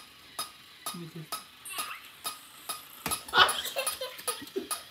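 Steady, evenly paced clicking, about two clicks a second, with voices over it that are loudest around three seconds in.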